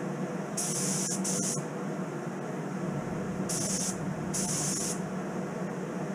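A gravity-feed spray gun spraying Cerakote coating in four short hissing trigger pulls: two close together about half a second in, then two more around the fourth second. A steady fan hum runs underneath.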